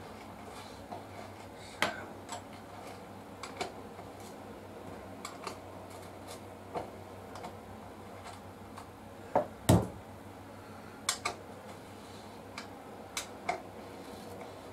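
Scattered metallic clicks and clinks of hand tools at work on a motorcycle's chain adjusters and rear axle, with two louder knocks about two-thirds of the way through and a few sharper clicks after them.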